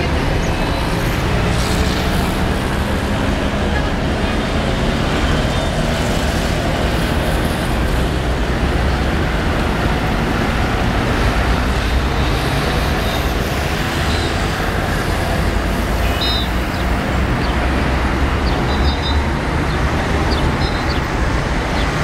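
Street traffic: car engines running and passing in a steady low rumble.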